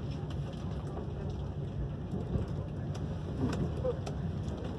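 Steady low rumble of a ČD RailJet train running along the track, heard from inside a Viaggio Comfort passenger coach, with a few faint clicks.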